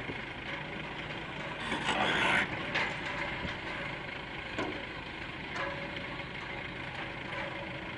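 Heavy machinery running: a steady diesel engine hum, with a loud rush of noise about two seconds in and a few creaks and clanks of steel further on.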